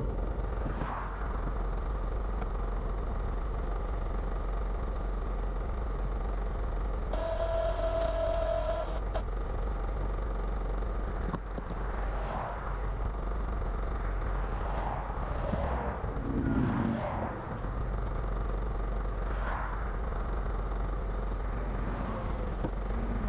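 Traffic passing on a two-lane highway: several vehicles go by, each a swell of tyre and engine noise, over a steady low rumble. A brief steady whine sounds about seven seconds in.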